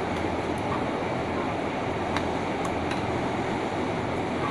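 Steady mechanical whirring background noise, like a fan or running workshop machinery, with a few faint light clicks.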